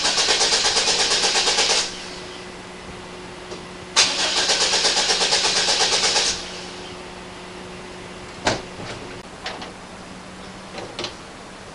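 The 1998 Oldsmobile Bravada's starter cranks the engine twice in rhythmic bursts of about two seconds each, and the engine never catches: a crank-no-start, which the owner puts down to a fuel problem. One sharp knock follows about halfway through.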